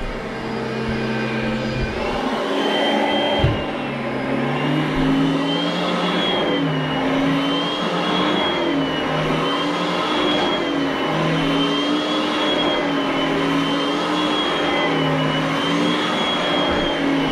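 Upright vacuum cleaner running as it is pushed back and forth over carpet, its motor whine dipping and rising in pitch about every two seconds. A single knock about three seconds in.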